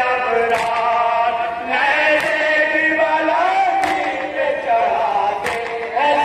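Men chanting a nauha, the Urdu Shia lament for the martyrs of Karbala, in drawn-out unison through a microphone. A sharp slap lands about every second and a half, keeping the beat in the manner of matam chest-beating.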